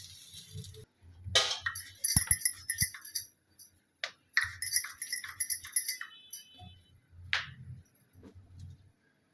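Metal kitchen utensils clinking and rattling: a run of quick ringing clinks starts a little over a second in, another about four and a half seconds in, and a single sharp clink comes near the end.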